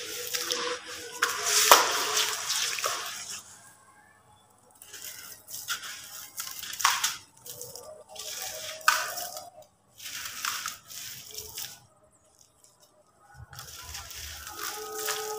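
Wet sand-cement mix squeezed and crumbled by hand in a plastic bowl of water: gritty squelching and splashing as the lumps break and fall into the water. It comes in bursts, with short pauses about four seconds in and again near the end.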